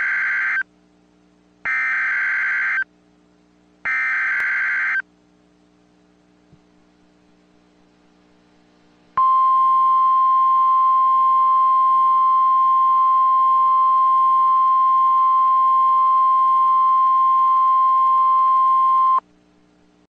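Emergency Alert System SAME header: short bursts of screeching digital data, the first ending just after the start and two more a second apart. After a few seconds' pause comes the NOAA Weather Radio warning alarm, one steady high tone held about ten seconds that cuts off abruptly, with a faint low hum underneath.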